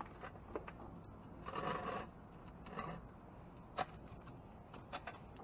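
Rummaging through discarded items in a dumpster: a short scraping rustle about a second and a half in and another near the middle, with scattered light clicks and knocks.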